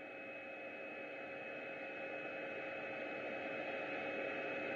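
Automatic book box assembly machine running: a steady hum with a few held tones over a hiss, slowly growing louder.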